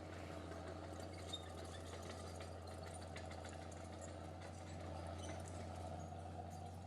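A steady low hum, like a small motor or engine running at a distance, with faint outdoor background.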